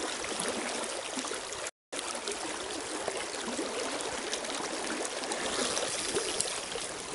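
Rushing river current: a steady, even rush of water from the riffles close by. The sound cuts out completely for a moment just before two seconds in, then carries on.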